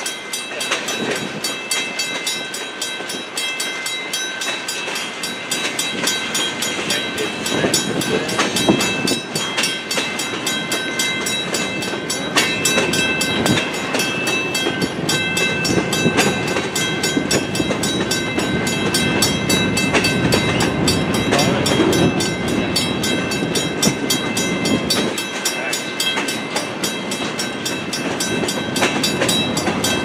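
A long freight train's cars (boxcars, hoppers and gondolas) rolling past at steady speed: a continuous rumble with wheel clatter on the rail, and high thin tones that come and go.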